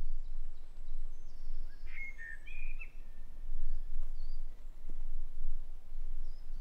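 Forest ambience: scattered short, high bird chirps, with a louder chirping call about two seconds in, over a steady low rumble.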